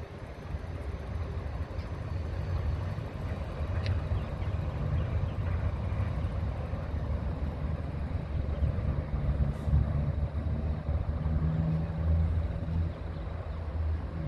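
Tram running past: a low rumble with the hum of its traction motors, getting louder over the first few seconds and staying loud.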